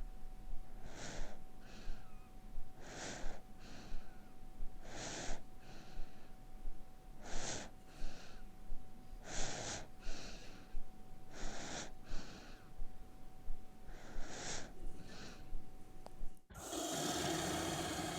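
A man snoring in a slow rhythm, seven loud rasping snorts about two seconds apart, each followed by a softer breath out. Near the end it cuts abruptly to a louder, steady droning noise.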